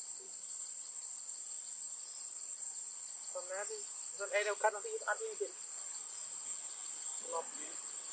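Insects keep up a steady high-pitched buzzing drone. A few short pitched calls from an unseen animal or voice come about halfway through, and one more comes near the end.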